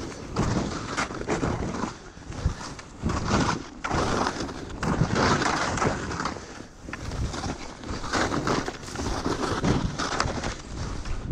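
Skis hissing and swishing through fresh powder snow, the rushing noise swelling and fading with each turn.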